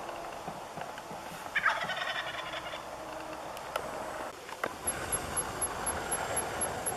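Young male wild turkey (jake) gobbling: one fast rattling gobble about one and a half seconds in, followed by a run of quicker, shorter notes near the end.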